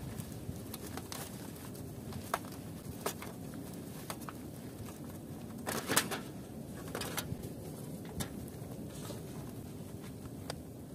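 Disposable aluminium foil tray, used as a makeshift smokehouse, having its foil lid worked loose and lifted off: scattered crinkles and clicks of thin foil, loudest in a burst of crackling about six seconds in. A steady low rumble sits underneath.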